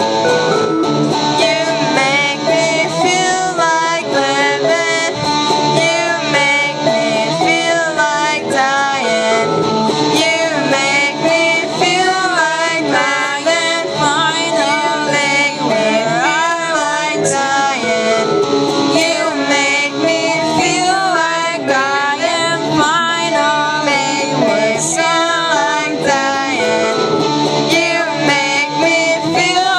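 A live band playing a song: electric guitar and a small keyboard, with female singing over them throughout.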